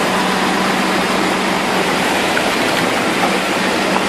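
Muddy floodwater rushing over a rocky road, a steady loud wash, with a vehicle engine running steadily underneath as a minivan is pulled through the flow on a tow chain.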